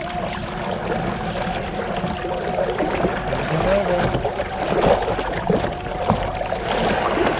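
Brushless electric kayak motor running at low power, drawing about 4 amps, with a steady high whine over water rushing past the hull.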